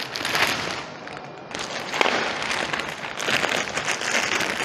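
Clear plastic bag crinkling and rustling as hands unwrap an air filter from it, easing off briefly about a second in.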